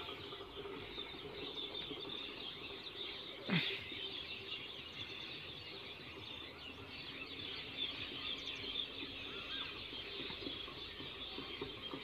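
Many small birds chirping at once in the background, a dense, steady chatter. About three and a half seconds in, one brief sound glides steeply down in pitch.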